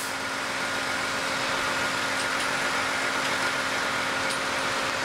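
Steady hum and hiss of a ship's engine-room machinery, with a constant low tone under it and a couple of faint clicks.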